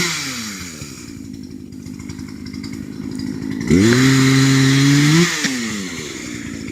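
Chainsaw engine idling, revved once to full throttle about four seconds in, held for a second and a half, then dropping back to idle.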